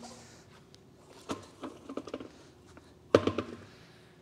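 Knocks and thumps as a removed car wheel, a steel wheel with its tyre, is set down on the shop floor, along with footsteps. The loudest thump comes about three seconds in.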